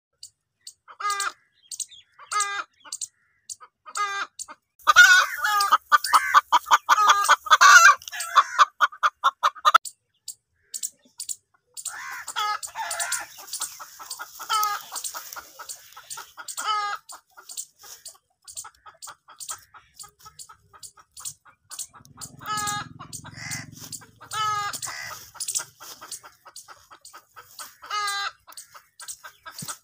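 Domestic hen clucking, with short calls about once a second and a louder run of quick calls from about five to ten seconds in.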